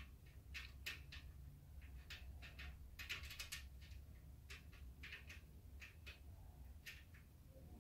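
Faint, scattered small clicks and light scrapes of a metal rack-mount shelf and its M6 screw being worked into the steel rack post, busiest about three seconds in, over a low steady hum.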